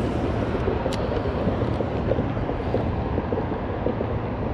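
Steady low, rough outdoor rumble with no clear pitch, and one sharp click about a second in.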